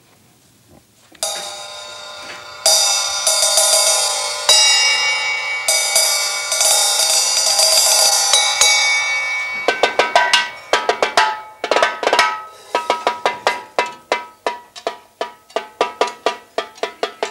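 Drum kit solo: ringing cymbal strikes that swell and sustain for several seconds, then, about halfway through, a run of quick, even drum strokes.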